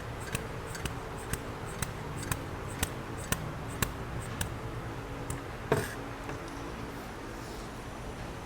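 Hand pump of a cooling-system pressure tester being worked to pressurise a Ford Fiesta's coolant system, clicking about twice a second, then a louder knock near six seconds in. A steady low hum runs underneath.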